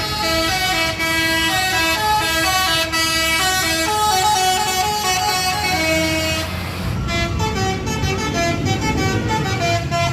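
Bus 'telolet basuri' musical horn playing a tune of held and stepped notes, with the bus engine running underneath. About seven seconds in, the tune changes to a quicker run of short notes.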